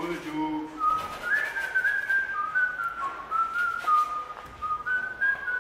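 A person whistling a slow tune, a single clear note stepping up and down in pitch with each note held briefly.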